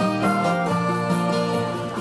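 Instrumental background music with held notes changing in steps.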